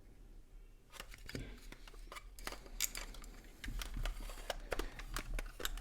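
Scattered light clicks and taps of a plastic flip clock being handled, growing busier in the second half.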